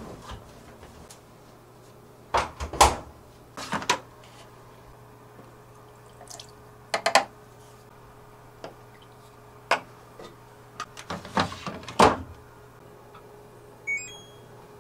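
Knocks and clunks from working a front-loading washing machine: laundry pushed into the drum, the detergent drawer handled and detergent poured in. Near the end comes a short electronic beep from the control panel as a button is pressed.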